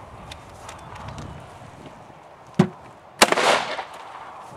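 A 12-gauge Mossberg 500 pump shotgun with a breacher barrel fires birdshot into a solid-core wooden door with its muzzle held against it: a sharp knock, then about half a second later a single loud blast with a short noisy tail.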